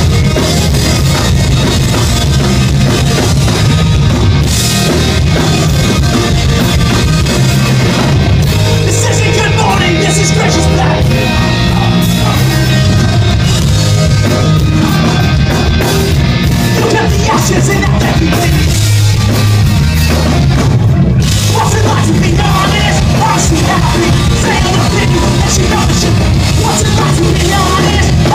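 Pop-punk band playing live: electric guitars, bass and drum kit with a singer, loud and continuous.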